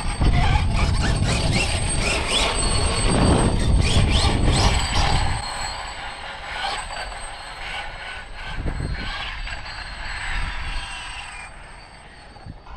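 Losi 5ive TE 3.0 electric 1/5-scale RC truck driving hard: a high motor and drivetrain whine that rises and falls with the throttle over tyre noise. After about five seconds it drops to a much quieter level and fades further near the end.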